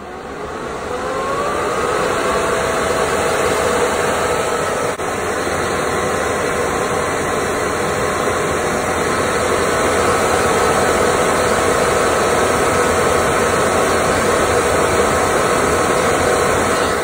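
Bitmain Antminer S9 ASIC miner's cooling fans spinning up, a rising whine over about the first two seconds, then running steadily at high speed with a loud, even rush of air. The sound cuts off suddenly at the end.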